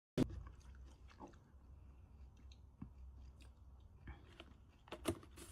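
Chewing and crunching: irregular small clicks over a low hum, with a louder knock right at the start and another about five seconds in.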